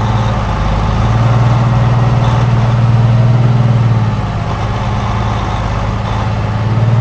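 Engine of a heavy farm vehicle running at a steady speed, a deep even drone that eases slightly about halfway through.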